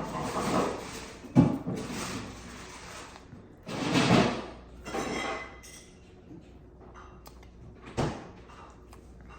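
Eating and handling noises from a person eating noodles: several short noisy bursts and a few knocks, the sharpest about eight seconds in.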